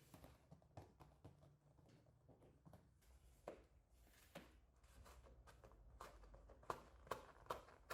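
Faint, scattered light taps and knocks, coming more often and a little louder near the end.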